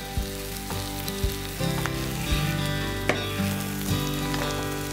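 Onion, tomato and vegetables sizzling in an oil-based masala in a clay pot over a gas flame, with a few clicks as soaked field beans drop in and a ladle stirs. Soft background music with held notes plays underneath.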